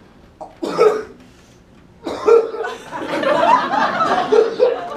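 Theatre audience laughing: a short burst about a second in, then sustained laughter from about two seconds in.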